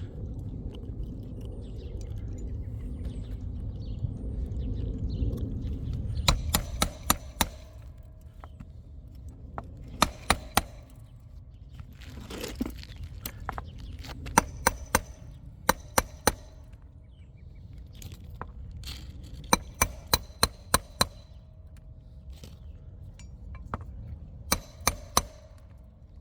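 Hammer blows driving roofing nails through asphalt shingles, in five quick groups of three to seven strikes, each with a short metallic ring. A low rumble runs under the first six seconds.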